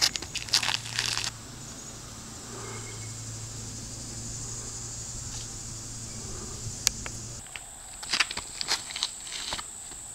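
Footsteps scuffing and crunching on a tee pad during two disc golf throws: a quick run of scrapes in the first second or so, and another about eight seconds in, over a steady high hiss.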